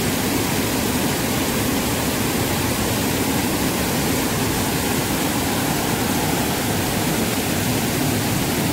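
Flood-swollen, muddy river pouring over a small cascade: a steady, even rush of white water.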